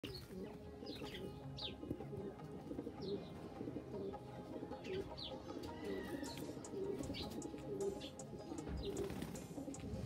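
Domestic pigeons cooing in repeated low, wavering notes, with short high falling chirps from other birds over them.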